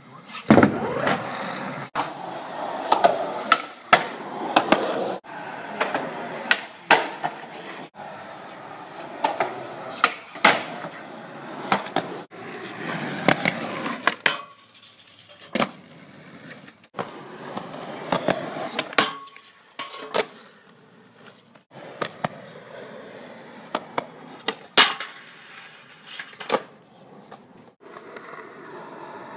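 Skateboard wheels rolling on concrete, with many sharp clacks of the board popping and landing on and around a kicker ramp and a flat rail. The rolling sound breaks off abruptly several times where clips are cut together.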